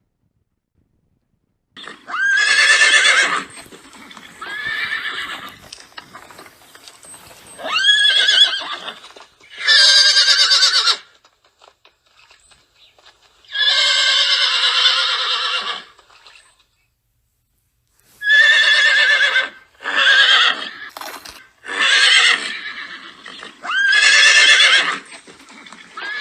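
Horses whinnying, a string of separate neighs of a second or two each with short gaps between them, starting about two seconds in after a silent moment.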